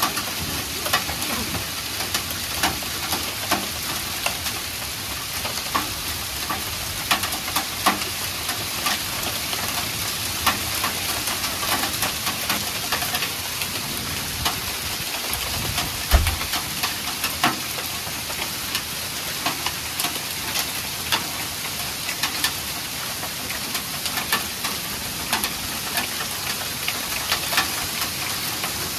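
Hail falling with rain: a steady dense hiss studded with many sharp clicks of hailstones striking. One low thump about sixteen seconds in.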